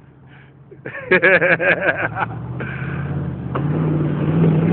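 A Jeep Grand Cherokee's engine running under load and revving up, getting steadily louder as the truck climbs out of a muddy hole. A single knock comes about three and a half seconds in.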